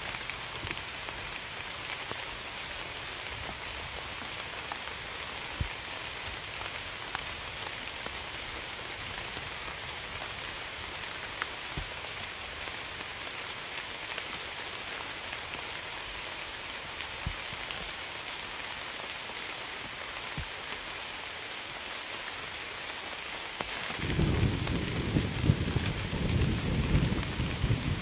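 Steady rain falling on a surface, with scattered single drops tapping. About 24 seconds in, a low rumble of thunder sets in and the sound grows louder.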